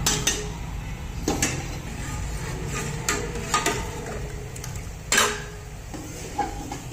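Steel ladle stirring thick dal in a metal pot, clinking and scraping against the pot's sides and bottom a handful of times.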